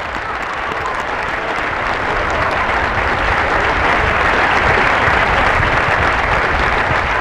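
Spectators applauding, a dense clapping that swells over the first few seconds and then holds.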